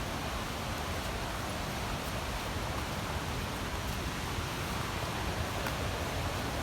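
Steady rush of a waterfall, an even hiss of falling water that holds level throughout.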